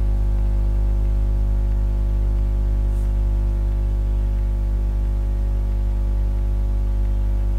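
Steady electrical mains hum with a buzz of overtones, unchanging throughout, with one faint click about three seconds in.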